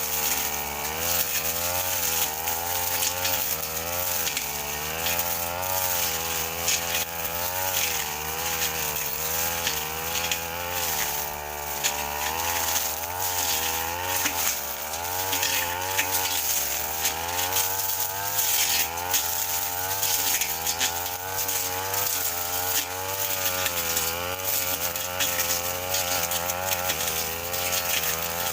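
Brush cutter engine running at high revs while its blade slashes scrub grass mixed with cogon grass. Its pitch keeps dipping and recovering as the blade takes the load.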